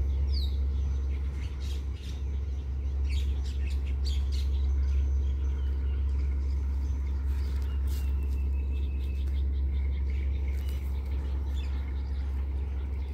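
Small birds chirping in short scattered calls over a steady low rumble.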